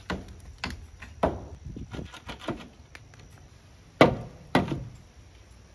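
Hammer blows on a concrete-block wall being partly demolished: irregular sharp knocks, the two loudest about four seconds in.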